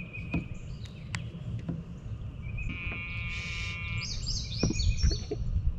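Wild birds calling: a buzzy call about three seconds in, then a quick run of high, downward-slurred notes, over a steady low rumble, with a few light clicks.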